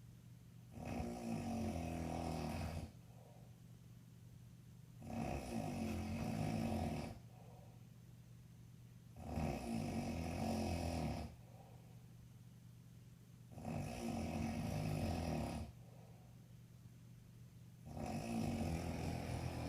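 A man snoring in deep sleep: five long, rumbling snores, each about two seconds, coming about every four to five seconds.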